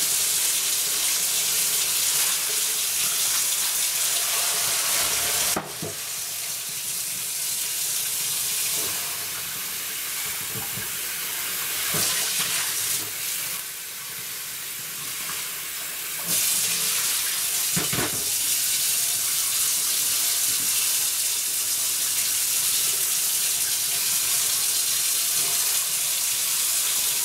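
Cold tap water running into a kitchen sink as a hot cast-iron roaster is emptied and rinsed. The flow is steady, drops quieter for about ten seconds in the middle, and a few knocks come in between.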